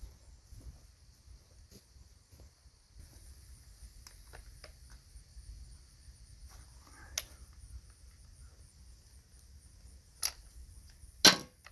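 Insects, likely crickets, trilling steadily in the background, with three sharp knocks: one about seven seconds in and two close together near the end, the last the loudest and briefly ringing.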